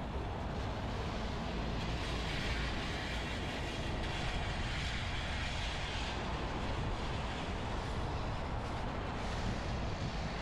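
Steady road-traffic noise with a low rumble, one vehicle's tyre hiss swelling and fading in the first half.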